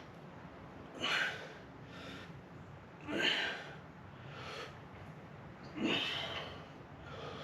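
A man breathing hard through a set of dumbbell rear delt flies: three loud, forceful breaths roughly two to three seconds apart, with softer breaths between them.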